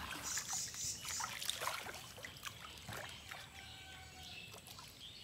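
Pond water trickling and lightly splashing as a man standing waist-deep moves and gathers a wet fishing line. It is a little louder in the first two seconds, then settles.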